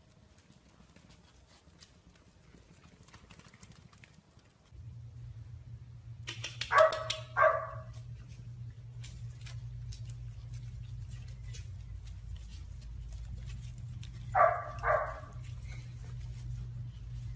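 A puppy walking on a hardwood floor, its claws faintly ticking, with two quick pairs of short, high squeaks, one pair about a third of the way in and another near the end, over a steady low hum.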